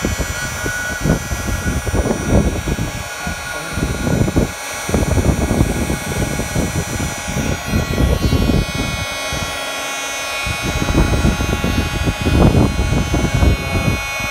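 Electric heat gun running, its fan motor giving a steady high whine over an uneven low rumble of blown air, while it shrinks marine-grade heat-shrink tubing over a coax connector.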